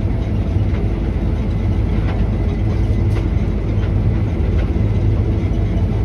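Combine harvester running while cutting grain sorghum (milo), heard from inside the cab: a steady low drone of engine and machinery with a few faint ticks.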